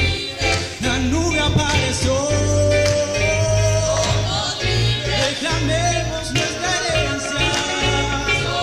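A band plays an upbeat song with a lead voice singing over a steady bass line, holding one long note for about two seconds near the middle.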